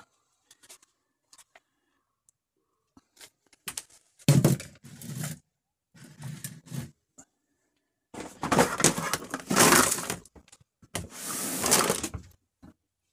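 Plastic tub with a perforated lid being handled in a wooden under-seat storage bin: scattered small knocks and clicks, a sharp knock about four seconds in, and two longer stretches of rustling and rattling near the end.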